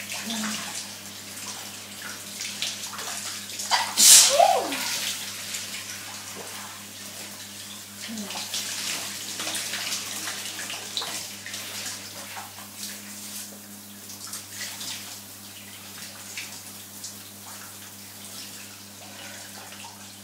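Shower water running steadily, with one loud sneeze about four seconds in, a sharp burst ending in a falling voiced tail.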